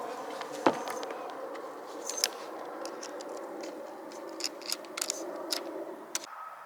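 A string of small, sharp clicks and ticks from hands fitting the dropper post cable on a mountain bike, the loudest about a second in and a quick cluster near the end. A steady hum lies under them and stops abruptly shortly before the end.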